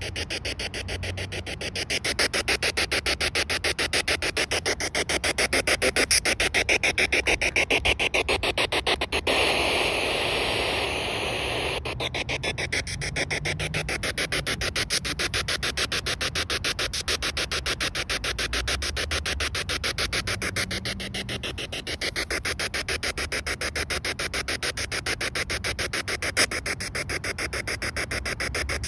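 Spirit box, a radio that sweeps rapidly through stations, playing through a small portable speaker: continuous radio static chopped into a fast stutter as it jumps from station to station.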